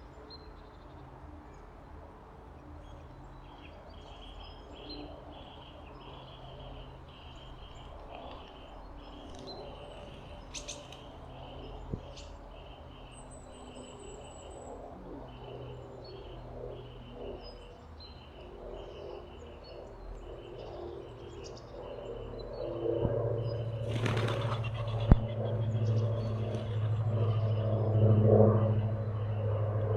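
Small birds chirping and calling, with one giving a quick, even series of short high notes, two or three a second. About three quarters of the way in a low droning hum swells up and becomes the loudest sound, with a sharp click shortly after.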